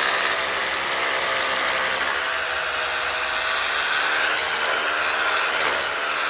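A motor or engine running steadily at a constant pitch, which dips slightly near the end.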